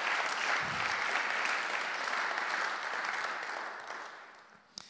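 Congregation applauding, steady clapping that fades away over the last second or so.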